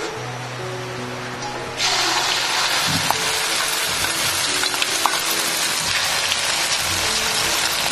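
Beaten egg with chopped houttuynia poured into hot oil in a wok, starting up a loud, steady sizzle suddenly about two seconds in.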